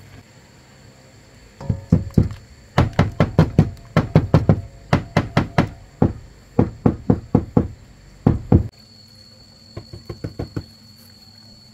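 Rapid runs of hard knocks, about six a second, in several bursts with short pauses between them, then a shorter, fainter run near the end.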